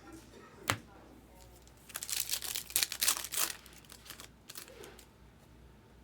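A card pack's foil wrapper being torn open and crinkled, a dense run of crackling for about a second and a half. A single sharp click comes before it.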